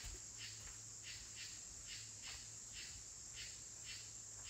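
Insects chirping in an even rhythm, about three short high chirps a second, over a steady high-pitched hum.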